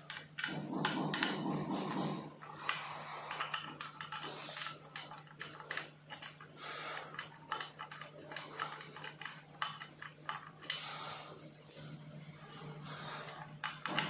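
Metal hex key clicking and scraping against a scooter disc brake caliper's mounting bolt as the bolt is turned, in irregular small knocks and rubs. A steady low hum runs underneath.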